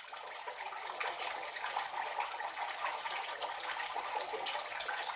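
Water splashing and trickling steadily from a small homemade bird-bath fountain.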